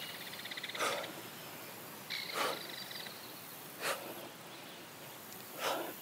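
A woman breathing out hard four times, about every second and a half, straining through pull-ups on a bar. A faint, rapid buzzing trill, like an insect, sounds twice in the background.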